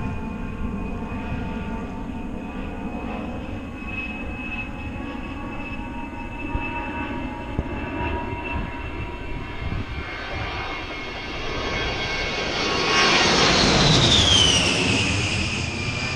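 A-10 Thunderbolt II's twin TF34 turbofan engines running with a steady high whine over a rumble, during a low takeoff. The sound swells in the last few seconds as the jet passes low overhead, and the whine slides down in pitch as it goes by.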